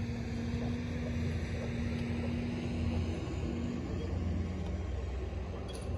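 Small fishing boat's motor running steadily at trolling speed, a low hum with a steady tone that shifts slightly lower about three to four seconds in.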